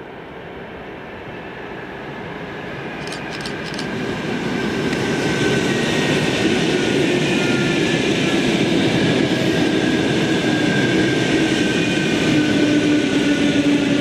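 EP2DM electric multiple unit approaching and running past on the rails: a rushing noise of wheels on track that swells over the first few seconds and then holds steady and loud, with faint whining tones slowly falling in pitch.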